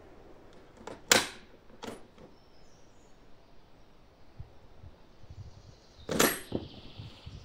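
Sharp metallic clacks from a Yugoslav Mauser M48A bolt-action rifle being handled between shots: a loud clack about a second in with a lighter one just after, then another pair about six seconds in with a brief metallic ring.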